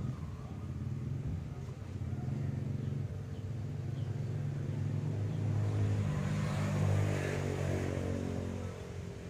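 A motor vehicle engine running with a steady low hum, growing louder about six seconds in and fading again near the end.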